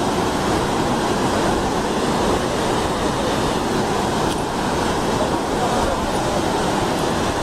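A waterfall's water rushing and pouring in a steady, even noise.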